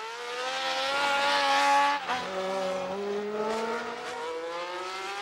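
Ferrari 312T2 Formula One car's flat-twelve engine at high revs: its pitch climbs, drops sharply about two seconds in, then climbs again as the car pulls away.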